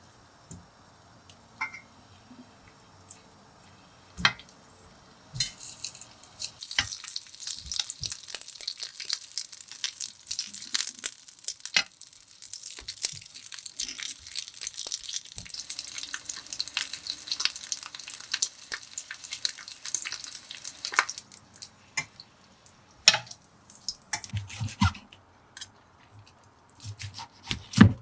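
Food sizzling and crackling in a hot pan, starting about five seconds in and dying away after about twenty seconds, with scattered knocks of utensils on cookware around it.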